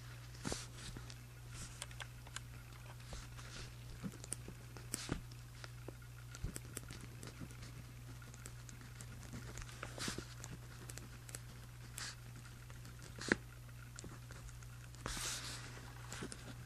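Pen writing on journal paper: short scratching strokes and small taps come irregularly, with a longer rustle near the end, over a steady low hum.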